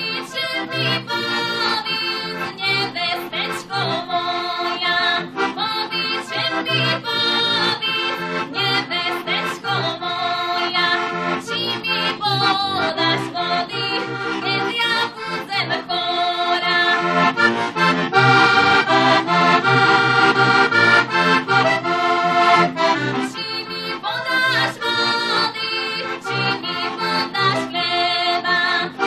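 Heligonka, the Slovak diatonic button accordion, playing an instrumental folk tune: a melody over an evenly pulsing bass-and-chord accompaniment.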